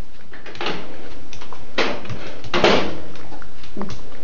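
Small dog biting and chewing on an orange wedge held in a hand, in about four short noisy bursts, the loudest near the middle.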